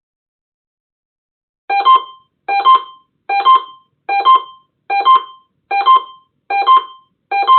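Electronic alert chime over a radio broadcast: a short two-note beep, a lower note then a higher one, repeating about every 0.8 s, starting about two seconds in.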